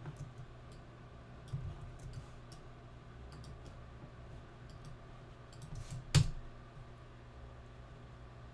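Scattered computer mouse clicks and keyboard key presses, with one sharper, louder click about six seconds in, over a faint low hum.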